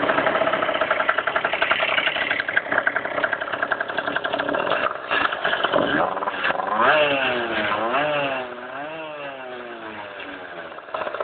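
Motorcycle engine running with a fast, even rhythmic clatter, then revved up and down a few times from about six seconds in before dropping back to a quieter idle. The owner suspects the clatter is piston slap.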